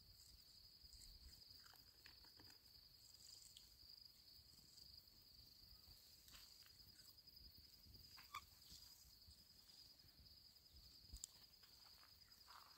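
Faint crickets trilling: a steady, finely pulsing high chirr with no break. A few brief soft sounds come and go over it.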